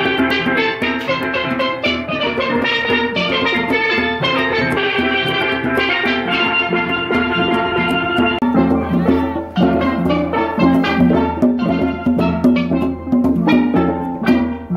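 Children's steel band playing steel pans, many quick struck notes in a steady stream, with conga drums keeping the beat underneath.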